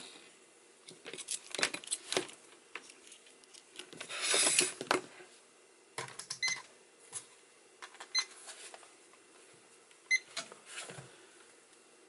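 Bench handling noise: alligator clips and test leads being unclipped from a small PCB relay and moved about, a scatter of light clicks and rattles with a longer rustle about four seconds in. A few short high pings follow in the second half.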